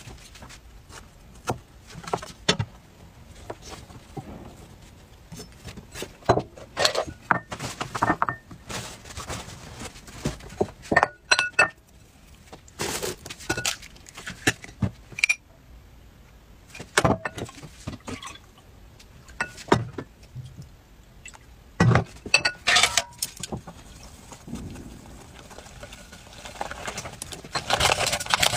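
Scattered clicks, taps and clinks of food and dishes being handled at a glass mixing bowl on a wooden table, with an egg broken into the bowl about halfway through. Near the end a whisk starts beating batter rapidly in the glass bowl, a steady fast scraping clatter.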